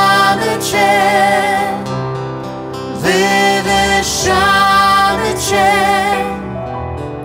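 Worship song performed live: women singing held, wavering notes over piano accompaniment, in two phrases with a short break about two seconds in and another near the end.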